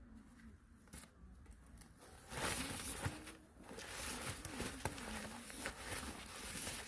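Rustling and crackling that start about two seconds in, after a quiet opening with a few light clicks.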